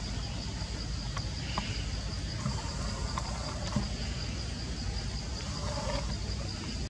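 Insects droning steadily on one high note over a low rumble, with a few faint short animal calls about two and a half seconds in and again near the end.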